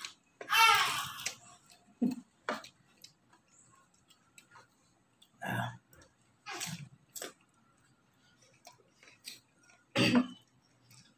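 People eating raw mango slices: scattered chewing and mouth noises, short throat sounds, and a brief pitched vocal sound about half a second in.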